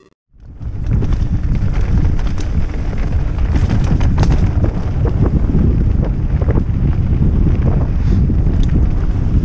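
Wind buffeting the microphone of a GoPro Hero 5 Session on a mountain bike ridden along a dirt singletrack; the heavy low rumble cuts in a moment in. Scattered clicks and rattles from the bike and its tyres on the rough trail run through it.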